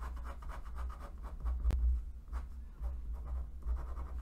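Pen scribbling quick back-and-forth hatching strokes on paper, shading in a diagram, with one sharper tap about a second and a half in.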